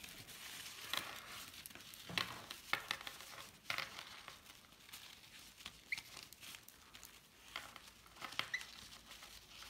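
Paper towel rustling and crinkling as a young hand-reared lovebird chick is picked up and handled, with scattered soft clicks and a couple of brief faint high cheeps from the chick.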